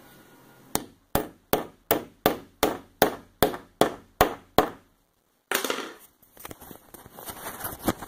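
A run of about eleven sharp, evenly spaced knocks, roughly three a second, each dying away quickly. About halfway through they stop, and after a short gap comes irregular rustling and scraping, like something being handled.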